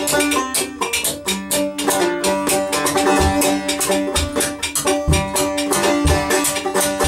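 Band music led by a banjo picking quick notes, with a washtub bass and cajón behind it. Deep thumps come about once a second through the second half.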